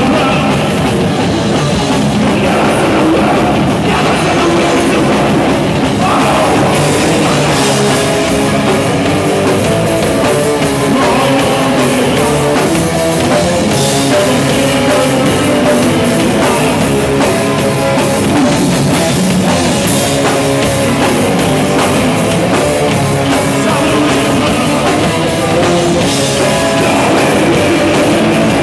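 Thrash metal band playing live and loud: distorted electric guitars, bass and a fast drum kit in one dense, unbroken wall of sound.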